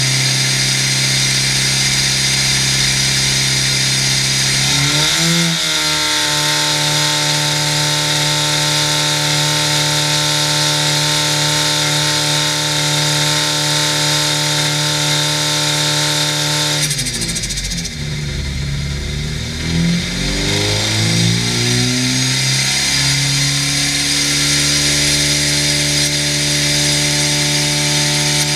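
Supercharged 999cc five-port A-series engine running under load on an engine dynamometer. It holds a steady speed, steps up to a higher speed about five seconds in and holds it. Later it dips and wavers in pitch for several seconds before settling steady again.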